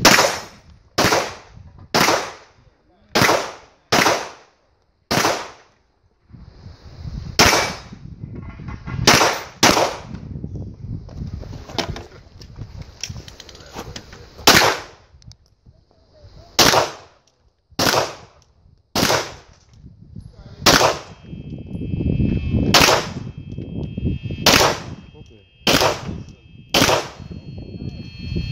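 Competition pistol fire: about twenty single shots, mostly about a second apart, broken by pauses of a few seconds, each shot ringing off briefly.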